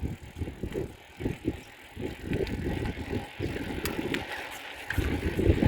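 Riding a bicycle: uneven gusts of wind rumble on the microphone with scattered light clicks and rattles, the rumble growing louder near the end.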